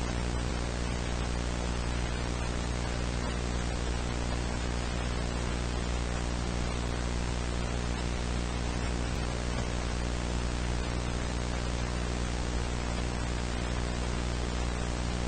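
Steady static hiss over a low electrical hum, unchanging.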